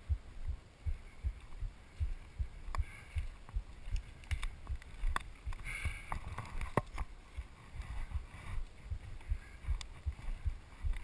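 Footsteps walking on a dirt trail: low, dull thumps about two a second, with a few sharp clicks scattered among them.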